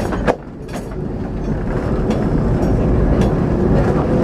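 Vintage Lisbon tram running on street rails, heard from on board: a steady low rumble with scattered clicks of the wheels over the track. A sharp knock comes just after the start, followed by a brief dip in level.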